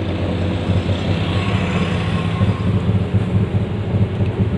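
A pickup-truck songthaew's engine running, a steady low rumble heard from inside the open rear passenger bed.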